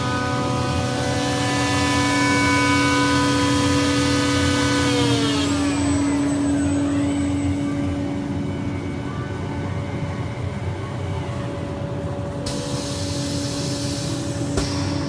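Acrylic edge polishing machine's motor and cutter head running with a steady whine, then winding down about five seconds in, its pitch falling as it coasts to a stop, while a lower steady hum carries on.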